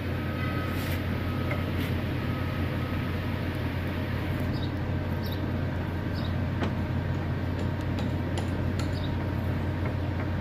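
Steady low hum of workshop machinery running, with a few faint light metallic clicks.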